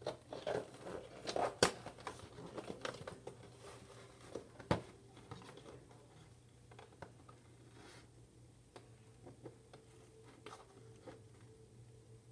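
Action-figure packaging being handled and opened: plastic and cardboard crinkling and rustling with short sharp clicks, busiest in the first five seconds and then sparser. A faint steady hum runs underneath.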